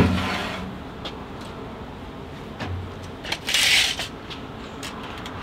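A sharp click, then about three and a half seconds in a short rush of noise as a steel tape measure's blade is pulled out.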